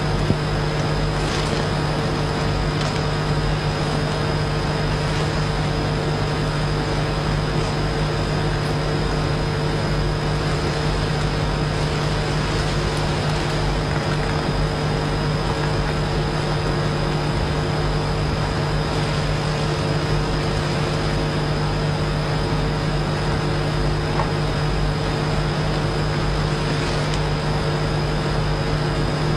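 Steady electrical hum with several fixed tones, under an even hiss, unchanging throughout.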